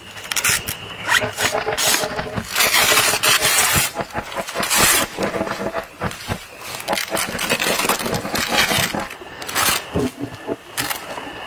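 Tent zipper being pulled open along a fabric window flap in repeated rasping strokes, then the stiff fabric flap rustling as it is rolled up.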